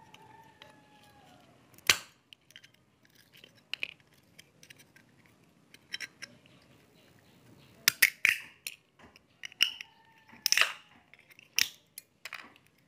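Diagonal side cutters prising and snapping open the black plastic casing of an STK transistor module: a string of sharp cracks and clicks, scattered at first and coming closer together about eight seconds in.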